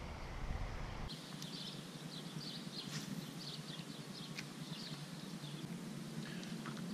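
Wind rumbling on the microphone for about the first second, then small birds chirping and twittering in quick, scattered calls.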